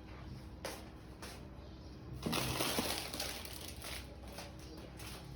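Food packages and containers being handled and set on refrigerator shelves: a short knock a little under a second in, then a rustling, scraping noise about two seconds in that lasts around a second.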